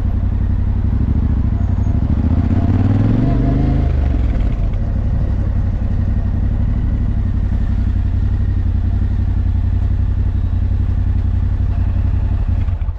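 Yamaha Ténéré 700's parallel-twin engine through an Akrapovič exhaust: the revs climb for a couple of seconds as the bike pulls, then drop sharply, and it settles into steady, low running.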